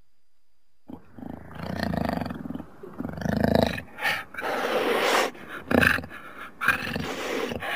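A jaguar calling in a run of harsh calls of uneven length, starting about a second in: some drawn out for about a second, others short and sharp.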